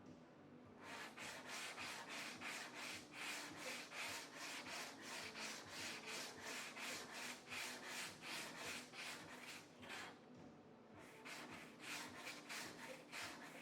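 Sandpaper rubbing back and forth over body filler and guide coat on a car's sheet-metal panel, in even strokes of about three a second. It pauses briefly near the end, then starts again.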